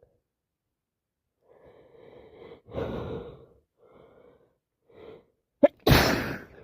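A woman with a head cold takes several catching, gasping breaths in short bursts, then sneezes loudly near the end.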